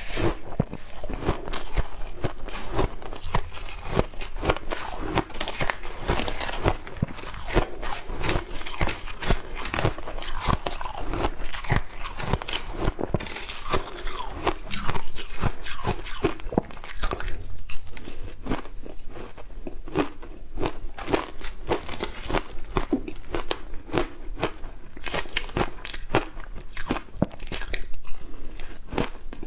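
Close-up crunching and chewing of frozen matcha ice, with dense, irregular cracks as the ice is bitten and ground between the teeth.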